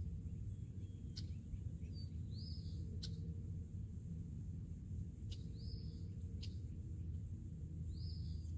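Steady low outdoor rumble beside a pond, with a small bird giving a short chirp three times a few seconds apart and a few faint ticks.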